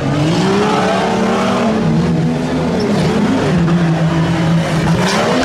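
Tuff truck's engine revving hard, its pitch rising and falling several times as the throttle is worked.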